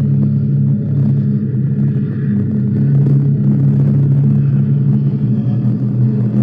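A steady, loud low engine-like rumble, holding an even pitch throughout.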